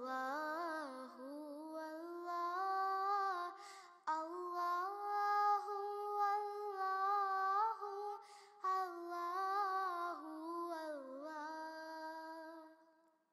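A single high voice singing a slow devotional naat melody, with long held notes that glide and waver in pitch and no other instrument heard. The voice fades away near the end.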